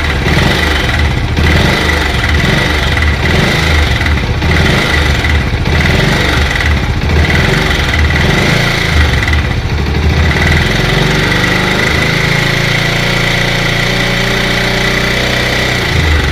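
Bajaj Pulsar 150's single-cylinder four-stroke engine running, its revs rising and falling repeatedly before it settles to a steady idle about ten seconds in. It carries a mechanical noise that the mechanic puts down to the timing chain.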